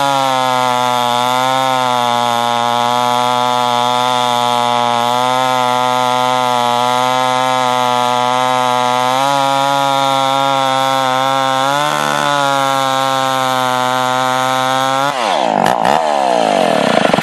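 Homelite Super XP-1050 two-stroke chainsaw engine running at a steady speed with a slight waver. Near the end its pitch swoops sharply down and back up as the throttle is worked.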